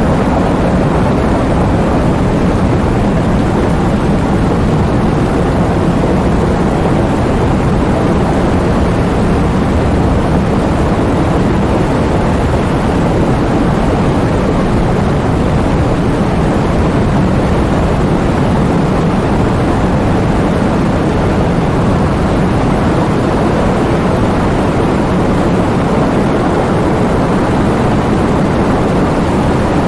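Heavy rain driven by strong wind: a steady, deep, dense rush of noise.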